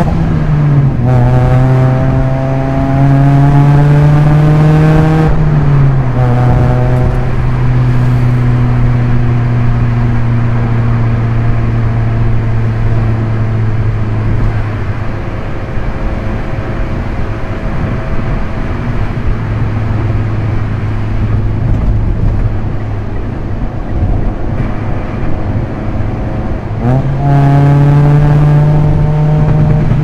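Proton Inspira's 1.8-litre 4B10 MIVEC inline-four through an aftermarket Supercircuit exhaust, heard from inside the cabin on a manual-gearbox drive. The engine note climbs as the car pulls through a gear, drops at an upshift about five seconds in, settles to a lower steady drone that goes quieter for a stretch, then rises sharply again near the end as the car accelerates.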